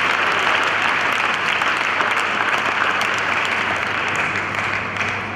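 Church congregation applauding, the clapping fading near the end.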